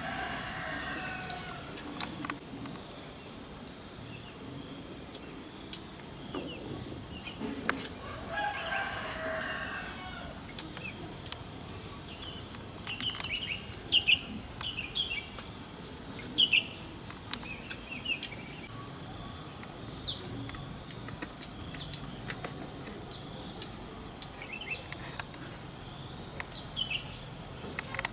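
Farmyard chickens: a rooster crowing twice, near the start and about eight seconds in, with short clucks and chirps scattered through the middle. A faint steady high-pitched whine runs underneath.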